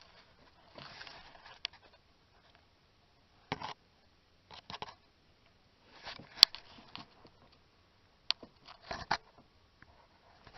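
Scattered metallic clicks and short scrapes of a wrench working on the intake manifold nuts, with quiet gaps between them. The sharpest click comes about six seconds in, with a few more near the end.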